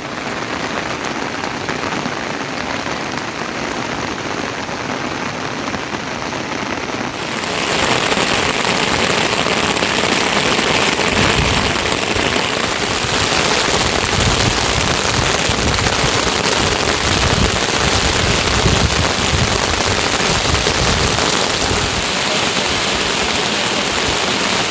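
Heavy rain falling steadily, a dense even hiss that grows clearly louder about seven seconds in.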